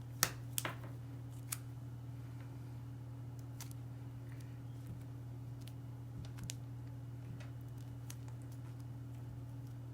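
A few sharp clicks from hands handling and twisting wire ends together, spread unevenly, the loudest about a quarter second in, over a steady low hum.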